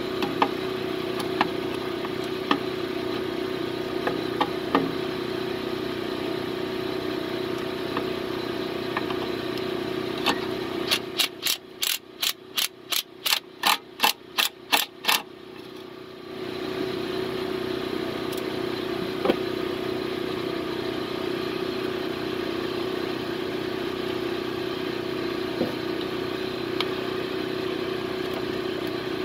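A steady mechanical hum with scattered knocks. A bit over ten seconds in, the hum drops away and a ratchet clicks in an even rhythm, about three clicks a second for some four seconds, as it turns a nut welded onto a broken exhaust manifold bolt.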